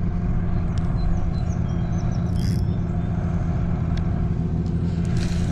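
A small boat motor running steadily with an even, low hum.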